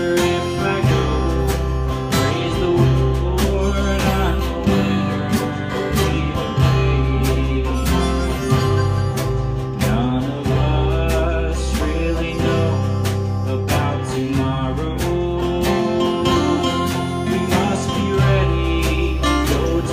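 Live country-gospel band playing an instrumental break: harmonica carrying the melody over strummed acoustic guitars and a walking bass line.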